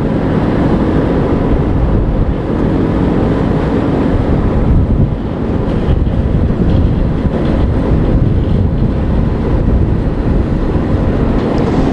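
A 2-metre-wide asphalt milling machine running, its rotating drum grinding the top layer off asphalt pavement: a loud, steady, deep rumble with a faint steady hum.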